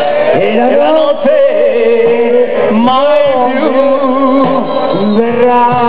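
Live band music: a man singing phrases over steady held chords.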